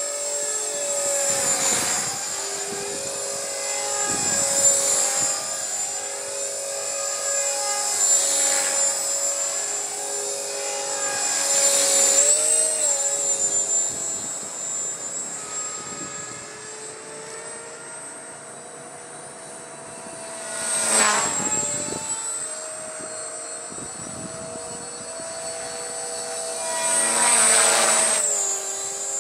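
Walkera V450D03 electric RC helicopter in flight: a steady high whine from its motor and rotor. It grows loud three times as it comes close, and its pitch dips briefly twice.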